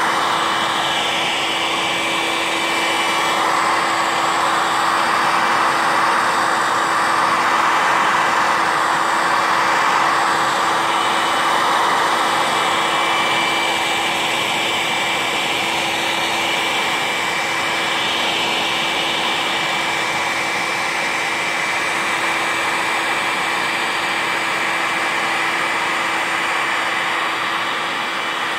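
Electric heat gun running steadily, its fan blowing hot air with a constant hum and a thin high whine over the rush of air, as it heats faded black plastic trim to darken it.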